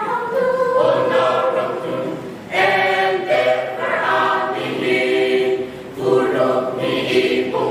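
Mixed choir of women's and men's voices singing a hymn, in sustained phrases with two short breaks between phrases, about two and a half and six seconds in.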